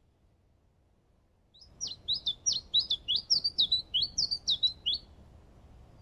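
A songbird singing one quick song phrase of rapid, repeated high notes, about five a second, starting a couple of seconds in and lasting about three seconds.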